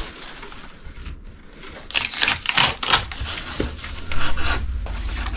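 Rummaging through a cardboard shipping box and its packing material: rustling and scraping strokes, a cluster about two to three seconds in and more near the end.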